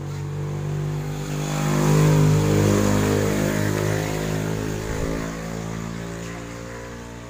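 A vehicle engine running steadily, getting louder to a peak about two seconds in and then slowly fading, like a vehicle passing by.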